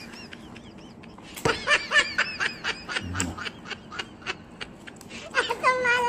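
High-pitched squeaky comic sound effects in quick runs, ending in a longer held squeal near the end.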